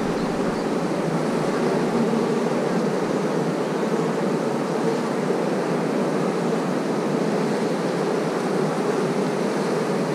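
Honeybees of an opened hive humming steadily around a comb frame crowded with bees: an even, dense buzz.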